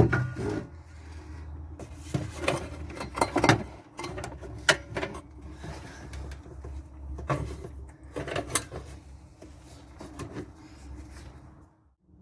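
Irregular knocks, clicks and rattles of parts and tools being handled, with a loud knock right at the start, over a faint steady low hum.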